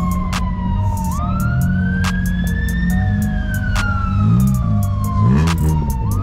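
Electronic dance music with a siren-like synth tone that slowly rises and falls over deep, sliding bass notes and a regular beat.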